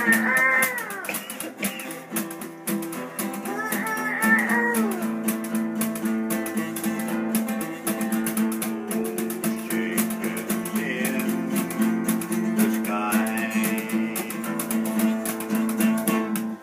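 Steel-string acoustic guitar strummed in a steady rhythm, with a few short wavering pitched notes over it. The playing stops at the very end.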